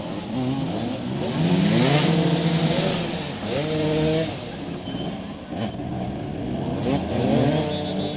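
Several motoball motorcycle engines revving up and down at once during play, their pitches rising and falling and overlapping, loudest a couple of seconds in.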